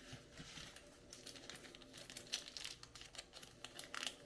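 Packaging crinkling faintly as parts are unwrapped and handled, a run of small irregular crackles.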